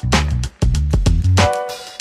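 Instrumental background music with drum hits, a heavy bass line and held notes.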